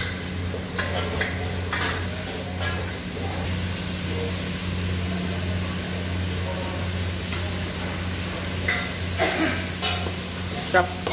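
Chicken and chicken liver sizzling in oil in an aluminium pot on a gas stove, over a steady low hum, with a few short clicks or scrapes, most of them near the end.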